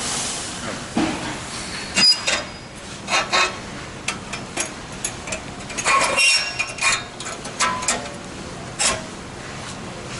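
Irregular metallic clinks and knocks of the steel lid springs and pins being handled and fitted onto a kiln's back hinge.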